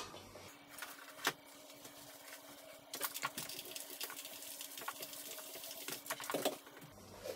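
Handling sounds from a blister-carded action figure and a clear plastic case on a tabletop: light plastic clicks and rattles about a second in, around three seconds and again near the end, over a faint steady hum.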